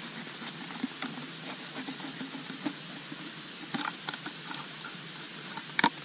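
Knife cutting through a thin plastic water bottle: scattered small crinkles and scrapes of the plastic, with one sharp crackle near the end, over a steady hiss.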